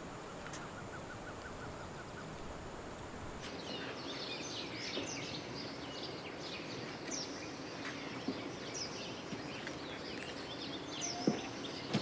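Outdoor ambience of small birds chirping, many short high calls coming thick and fast from about three and a half seconds in, over a low steady background hiss.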